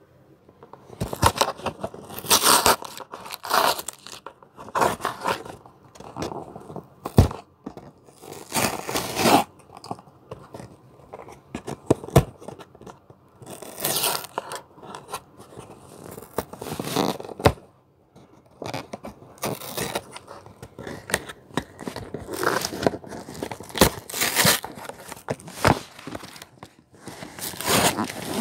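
Cardboard shipping box being torn open and its packing handled: irregular bursts of tearing, crunching and scraping.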